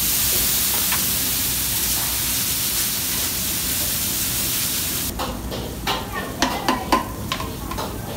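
Water splashed onto a hot flat-top dosa griddle sizzling and hissing loudly as it flashes to steam, readying the griddle for the batter; the hiss cuts off about five seconds in. After that come short clinks and scrapes of metal utensils and bowls.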